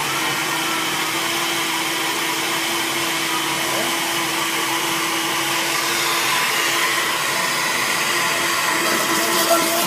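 Countertop blender motor running steadily at speed, blending spinach and coconut water into a green smoothie.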